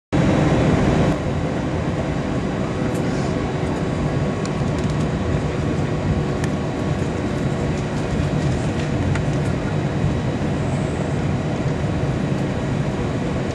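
Steady cabin noise inside an Airbus A321 airliner with its engines running: an even rushing hum with a few faint constant tones, louder for about the first second.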